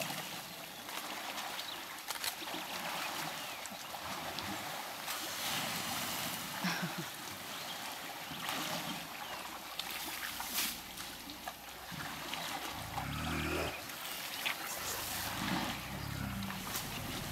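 African elephants drinking and wading in a muddy watering hole: water sloshing and trickling from their trunks, with scattered splashes. Two low rumbles come near the end.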